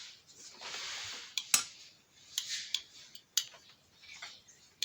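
Irregular sharp clicks and clatter from handling the opened fan heater's hard parts, the loudest about a second and a half in, with a short hiss near the start.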